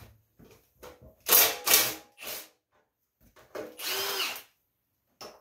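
Hand-held power tool run in short trigger bursts: two quick loud bursts about a second and a half in, a shorter one after, then a longer spin near the end whose pitch rises and falls.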